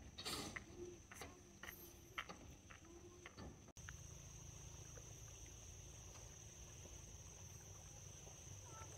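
Faint, steady high-pitched insect chirring in the countryside, with scattered light clicks and taps in the first few seconds. The sound changes abruptly a little under four seconds in, after which the chirring holds on evenly.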